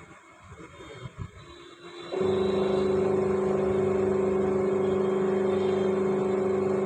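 Washing machine drive motor switched on about two seconds in and humming steadily with a low electrical drone. The noise comes from the motor itself, which the technician judges to be faulty since the gearbox has already been replaced. Before it starts there are a few faint knocks.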